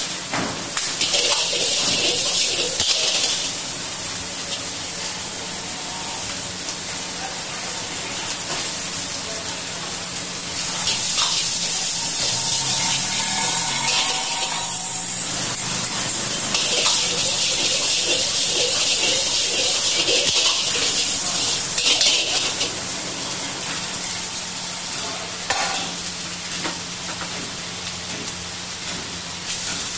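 Egg and chopped vegetables sizzling in a hot iron wok, stirred and tossed with a metal ladle. The sizzle swells louder in stretches.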